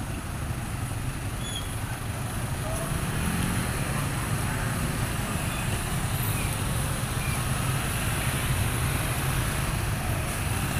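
Many small motorcycle and scooter engines running as a slow procession rides past, a steady drone of engines that grows louder a few seconds in.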